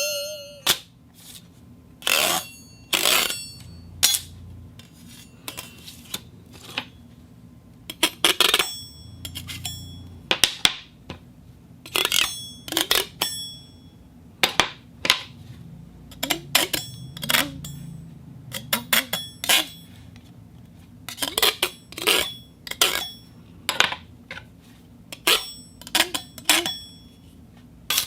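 Metal plates clashing and clinking together in repeated separate strikes, often in quick pairs or small clusters, each with a short bright metallic ring.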